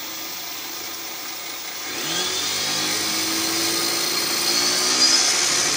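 Ryobi 40V electric motor in a converted Yamaha QT50 moped, driving the raised wheel as the throttle is opened. About two seconds in it speeds up with a rising whine, then runs at full throttle, not very loud.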